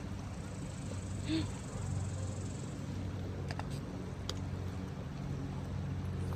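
Outdoor ambience with a steady low mechanical hum and a faint high insect buzz over the first few seconds, broken by a few small clicks.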